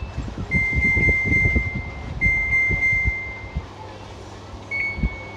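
Washing machine control board's buzzer beeping: two long high beeps, each about a second and a half, then a short beep near the end. Low rumbling noise runs underneath.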